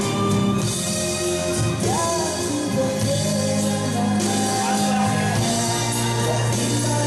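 A man singing through a microphone and PA system over amplified band backing music, holding long notes, with his voice rising in pitch about two seconds in.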